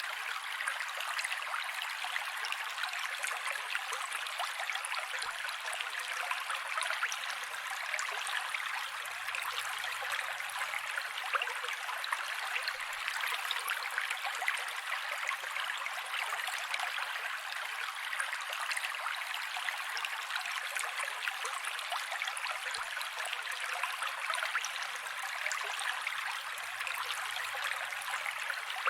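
Mountain creek water flowing steadily, an even rushing and splashing with no breaks.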